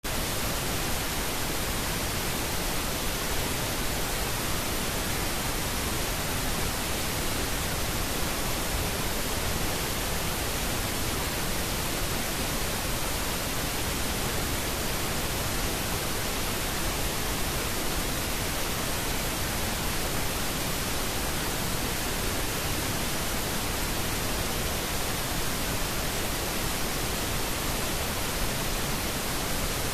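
Steady, even hiss of generated noise, the masking track of a subliminal affirmation recording.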